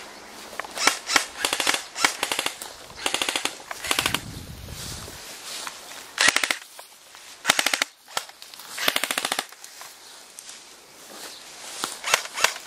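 Airsoft rifles firing repeated short full-auto bursts, each a quick, even rattle of shots, with pauses of a second or more between bursts.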